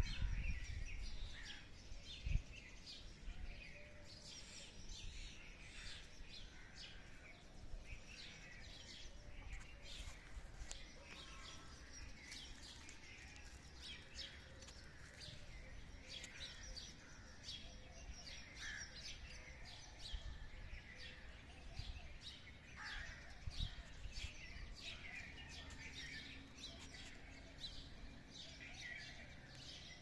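Many small birds chirping and twittering together in a dense, continuous chorus of short high calls. A low rumble sits under the first couple of seconds, and a single thump about two seconds in is the loudest sound.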